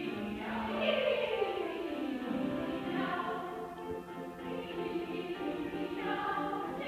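Women's choir singing a cat-imitation piece: about a second in, the voices slide down in a long downward glide, then hold sustained chords.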